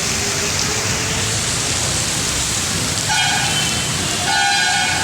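Heavy rain pouring down steadily, with a vehicle horn honking twice: a short blast about three seconds in and a slightly longer one near the end.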